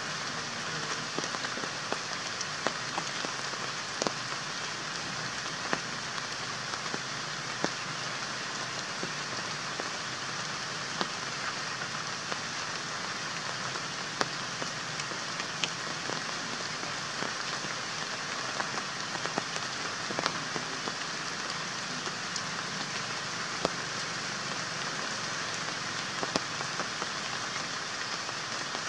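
Steady rain falling, an even hiss with frequent separate drops ticking sharply against nearby surfaces.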